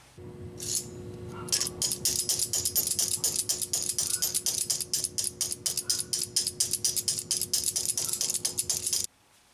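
Rapid light tapping of a wrench on a 1999 Honda Accord's EVAP canister vent shut valve, about six strikes a second, starting about a second and a half in and cutting off suddenly near the end, over a steady hum. The solenoid valve is stuck and does not click shut when energized, and the tapping is meant to free it.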